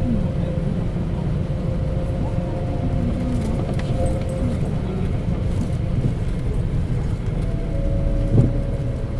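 Mitsubishi Fuso KC-MP617K city bus heard from inside while under way: a steady engine drone with a steady high whine over it. This is an abnormal noise far from the model's usual sound, which the uploader suspects comes from some fault or trouble. A single knock is heard about eight seconds in.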